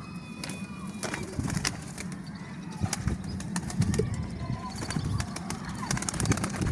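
Pigeons' wings flapping, with many sharp wing claps that come thicker near the end and a few faint bird calls, over a steady low rumble.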